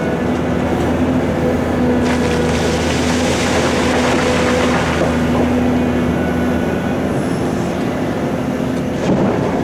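Heavy diesel engines of a large excavator and quarry dump truck running steadily under load, with a louder rushing, hissing noise from about two to five seconds in and a short knock near the end.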